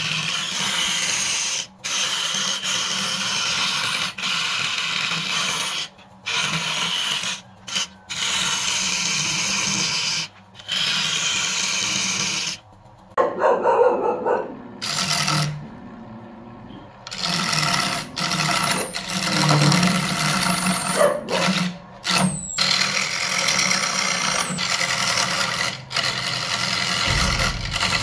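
Hand-held turning chisel cutting into wood spinning on an electric wood lathe: a steady scraping hiss, broken by several sudden brief gaps, with a louder, lower-pitched stretch about halfway through.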